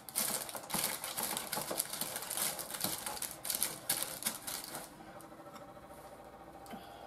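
Metal spoon scraping and tapping against a stiff, crumbly cake batter and the paper-lined tin as the batter is pressed and spread level: quick clicks and scrapes that stop about five seconds in.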